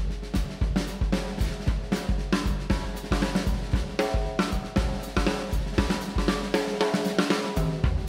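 Music with a drum kit playing a busy, driving beat (snare, bass drum, hi-hat and cymbals) under held pitched instrument notes.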